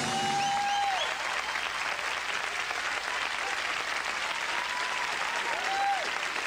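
Studio audience applauding after a song, a steady clapping with a few whoops rising over it near the start and again near the end.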